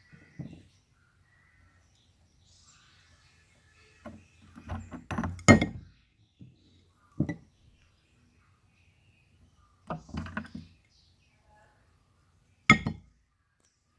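Hard objects knocking and clinking: a cluster of knocks about four to six seconds in, single sharp knocks near seven and thirteen seconds, and another short cluster around ten seconds.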